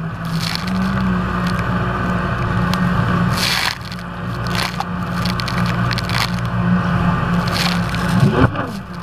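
Jet ski engine running at steady revs, its pitch rising slightly about a second in and wavering near the end, with wind rush and repeated splashes of spray and chop against the hull.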